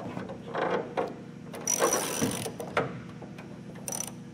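Socket ratchet clicking in three or four short bursts as it works loose the nut on the bolt through the wing-incidence cam of a Cessna 150.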